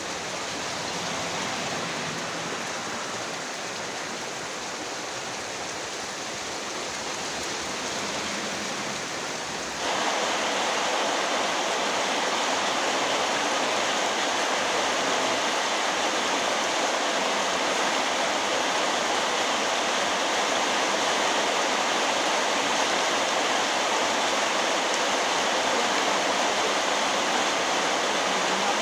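Very heavy rain pouring down in a steady, dense hiss. It turns abruptly louder about ten seconds in.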